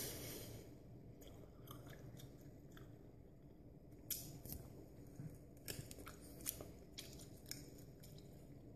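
Faint chewing of a tough piece of fried fabric cut from boxer shorts, with scattered short clicks from the mouth, mostly in the second half.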